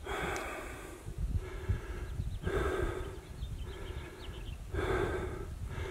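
A hiker's heavy breathing, a run of long breaths in and out, each under a second, from exertion while climbing. A low rumble runs underneath.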